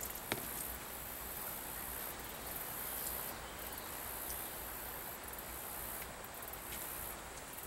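Outdoor ambience of insects trilling steadily and high-pitched, with a faint click just after the start.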